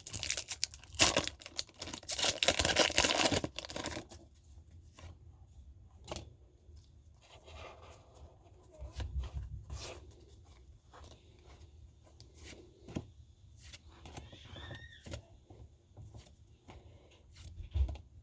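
A foil Pokémon booster pack wrapper being torn open, a loud ripping rustle for the first few seconds. Then quieter scattered clicks and rustles as the cards are slid out and handled.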